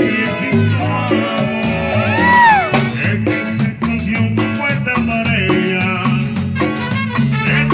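Live Mexican banda music: clarinets and brass over a steady low bass line. About two seconds in, a high note slides up and back down.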